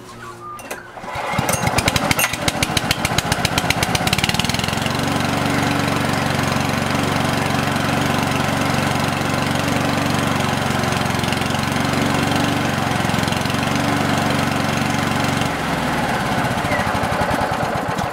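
Walk-behind lawn mower's Sanli overhead-valve four-stroke engine starting on choke and running. It catches about a second in with its firing strokes plainly separate, settles into a steady even hum about four seconds in, and the tone changes about fifteen seconds in.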